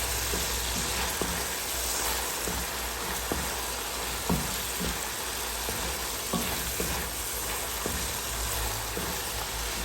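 Chicken pieces and garlic sizzling steadily in hot oil in a pan while being stir-fried to golden brown, with scattered light knocks of the stirring utensil against the pan.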